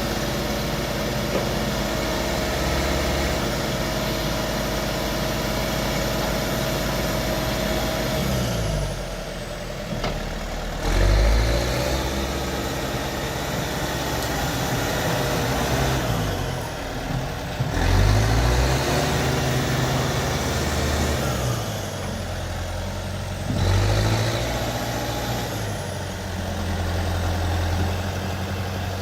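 Diesel engine of a JCB 4CX backhoe loader running steadily, its engine speed dipping and rising again several times.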